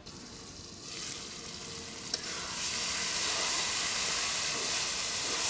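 Food frying in oil in a black iron karahi over a wood fire. The sizzling swells about two and a half seconds in, as the lid comes off and a spatula stirs, and then holds steady; there is one light knock just before the swell.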